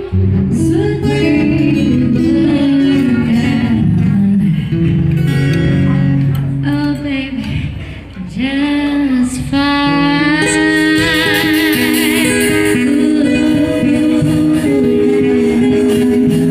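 An acoustic band playing a song: a singer holding long notes, one with a wavering vibrato a little past the middle, over acoustic guitar accompaniment.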